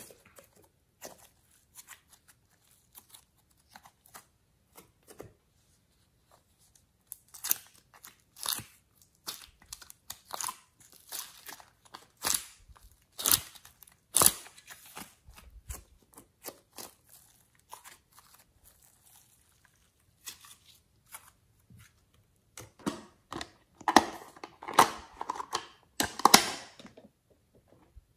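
Soft modelling clay being squeezed, pulled apart and torn by hand, making irregular sticky crackling, tearing and crunching noises. The noises come in scattered bursts and are thickest and loudest a few seconds before the end.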